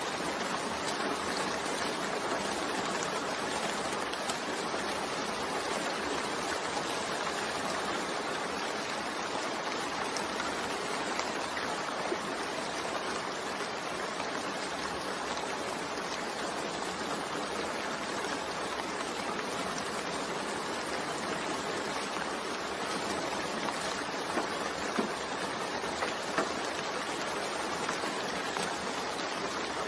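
Steady rain with the odd louder drop ticking out of the hiss, laid down as a sleep-aid background.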